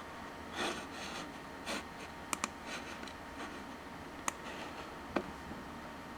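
Computer keyboard and mouse in use: a few soft keystrokes, then scattered sharp single clicks, one quick pair among them.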